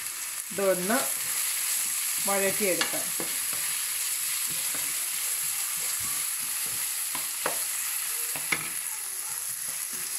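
Sliced onions sizzling as they fry in hot coconut oil, stirred with a wooden spatula in a nonstick pan: a steady frying hiss, with the spatula scraping through the onions and tapping the pan sharply a couple of times late on.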